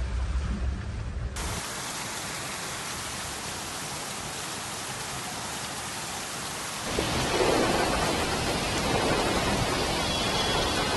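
Heavy monsoon rain falling as a steady hiss, becoming louder and fuller about seven seconds in. A low rumble fills the first second or so.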